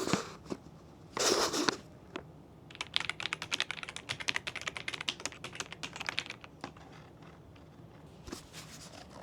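Keys of an AJAZZ AK980 mechanical keyboard being typed on. A short flurry about a second in is followed by a fast run of keystroke clicks lasting about four seconds, which thins out to a few single presses near the end.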